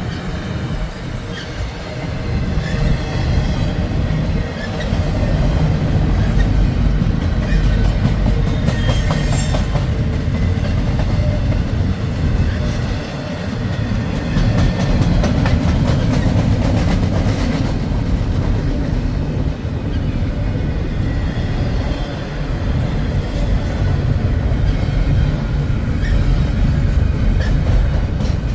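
Long freight train's cars rolling past: a steady low rumble with repeated clicks of wheels over the rails, and a brief hiss about nine seconds in.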